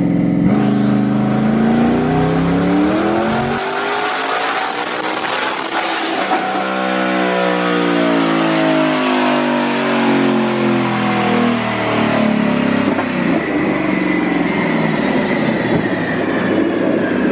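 Twin-turbocharged Ford Mustang GT's 5.0 Coyote V8 running hard on a chassis dyno. The engine pitch climbs for several seconds, then sweeps down and rises and falls again, with a high whine running along above it.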